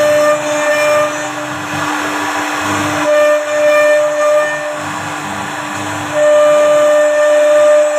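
CNC wood router running, its spindle giving a steady whine over the hiss of the cut. A second, higher tone comes in three times, each lasting a second or two, as the machine works through the wood.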